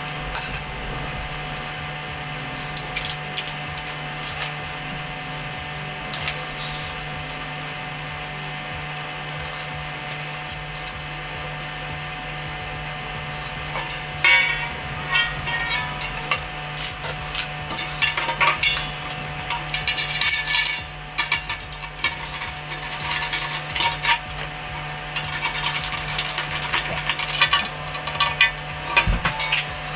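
Thin metal barbecue parts clinking and rattling as the legs are handled and fitted to the enamelled steel bowl. There are a few scattered clicks at first, then busier bursts of clatter from about halfway on. A steady low hum sits underneath.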